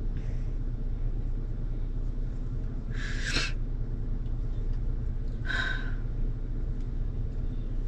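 A woman crying, taking two short sniffling breaths about three seconds and five and a half seconds in, over the steady low rumble of a car's cabin.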